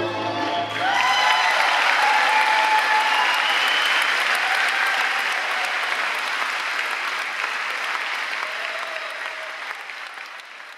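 A large audience breaks into applause with cheers and whoops as the last notes of the music stop, less than a second in. The clapping then fades away near the end.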